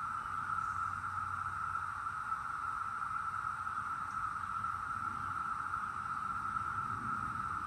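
Brood X periodical cicadas in a massed chorus: a steady, unbroken drone at one pitch.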